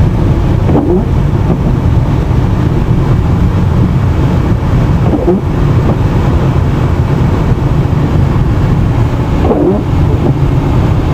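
Steady low rumble of a car's engine and tyres heard from inside the cabin while driving on a snow- and ice-covered road.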